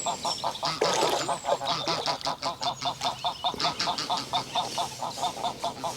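Geese honking continually, a rapid run of calls, about five a second.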